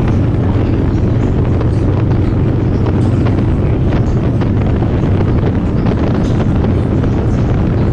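Heavy wind noise buffeting the microphone over a motorcycle engine running steadily at cruising speed.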